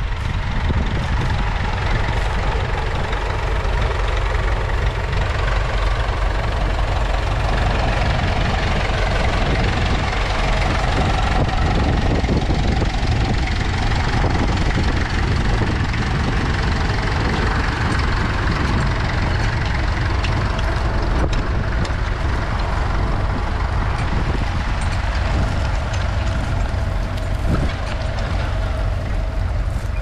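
Massey Ferguson tractor engine running steadily under load as it pulls a mounted plough through stubble.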